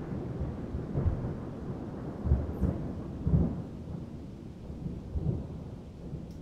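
Thunder rolling in a long low rumble, with several heavier surges between about one and three and a half seconds in, then dying away.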